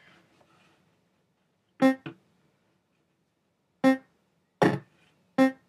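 Short electronic piano-like bleeps, all on the same pitch, about six of them at uneven intervals with silence between, two of them in quick pairs. They are the sound effect of a breakout-style game as the ball bounces off the paddle, walls and bricks.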